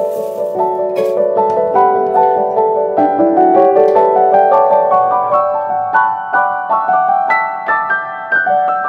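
Background piano music: a busy melody of quick notes, without a voice.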